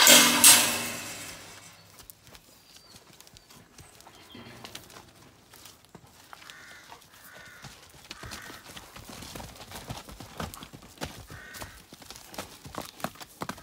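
Horses' hooves clopping on a tarmac driveway as the horses walk out through the gate, with the clops coming thick and fast in the second half. A loud sound at the very start fades away over about two seconds.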